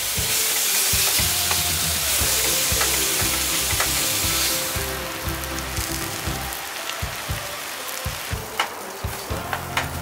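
Spicy stir-fry sizzling in a frying pan on a camp stove, loud for the first few seconds and then quieter about five seconds in. Near the end a spatula taps and scrapes against the pan a few times as it is stirred.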